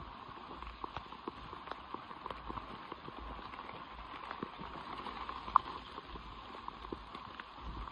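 Footsteps of a person walking through wet forest undergrowth: irregular crunches and ticks of boots on the forest floor and brushing ferns, over a steady hiss, with one sharp tick about five and a half seconds in.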